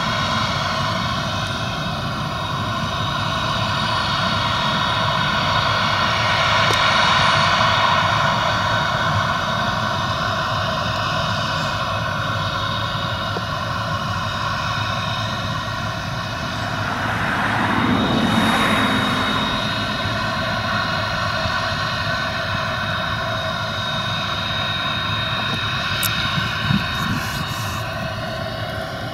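Claas Lexion tracked combine harvester running steadily while cutting wheat: the droning hum of its engine and threshing machinery. About two-thirds of the way through, a rushing noise swells and fades.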